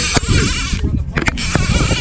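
Conventional fishing reel's clicker buzzing in two spurts of about a second as a hooked kingfish pulls line off against the drag, over low wind and boat rumble.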